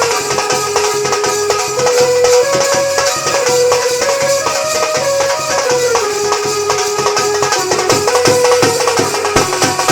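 Loud Indian folk music for a nautanki-style dance: a sustained melody line that steps up and down in pitch, over steady percussion with a bright jingling layer.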